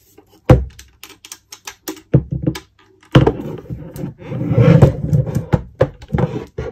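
Handling noise from a hard collector's presentation box with metal latches: a sharp knock about half a second in, then a run of clicks and taps, and from about three seconds in rubbing and rustling as the box is handled.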